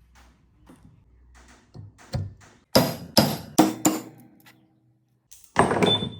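A run of hard, sharp knocks: light taps at first, then four loud strikes in quick succession about three seconds in, and another loud knock near the end that rings briefly, as of parts being struck while a table fan's shaft bush is worked on.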